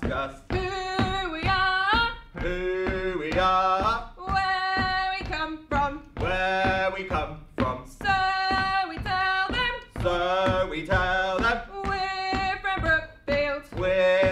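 A man and a woman singing a call-and-response song to music, in short sung phrases of about a second with brief gaps between them.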